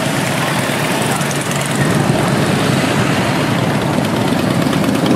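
A procession of cruiser and touring motorcycles riding past one after another at low speed, their engines running together in a steady loud drone.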